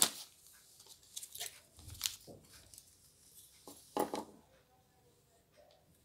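Hands handling small craft items on a newspaper-covered table: rustling and small clicks, with three sharper knocks near the start, about two seconds in and about four seconds in.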